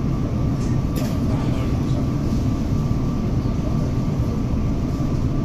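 Steady low rumble inside a Tobu Railway commuter train car, with a faint steady high tone over it.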